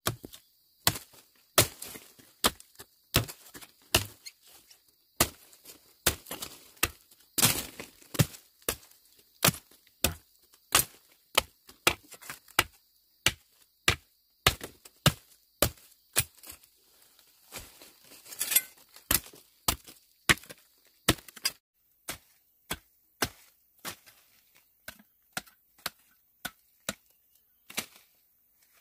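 Steady chopping, a blade striking down on wood about twice a second. The strikes thin out and grow softer over the last several seconds.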